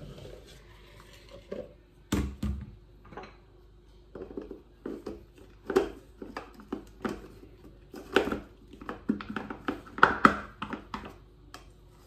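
Plastic clicks and knocks from handling a hand blender's chopper bowl as its black lid is fitted and pressed into place, with a heavier knock on the countertop about two seconds in.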